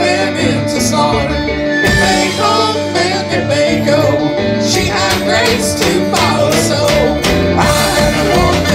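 Live band playing a folk-rock song on banjo, electric guitars, bass and drums.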